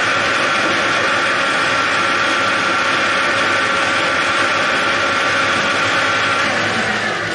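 Metal lathe running with a large workpiece spinning in its chuck: a steady mechanical din with a steady whine. Near the end the machine is switched off and begins to spin down.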